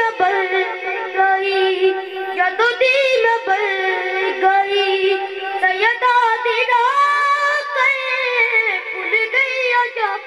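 A boy's high voice singing a devotional chant into a microphone, with long held, wavering notes.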